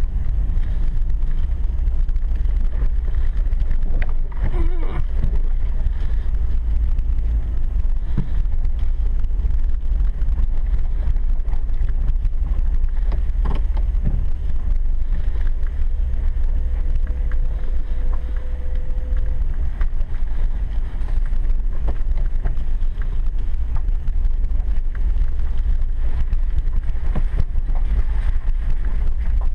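Steady low rumble of a pickup truck driving slowly on a rutted dirt road, heard from inside the cab, with a few knocks from bumps in the track.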